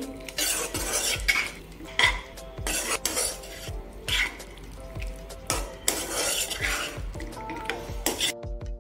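Steel spoon stirring elbow macaroni into thick tomato sauce in a nonstick frying pan: irregular scrapes and clinks of the spoon against the pan.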